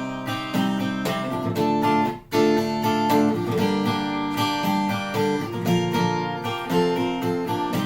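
Acoustic guitar strummed in a fast, even gallop rhythm, playing the chords of the song's intro, with a brief break about two seconds in.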